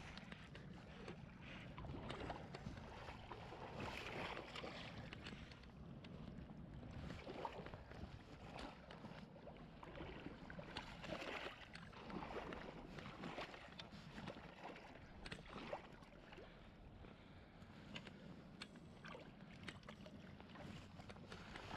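Faint river water splashing and gurgling, in irregular small splashes over a steady low rush.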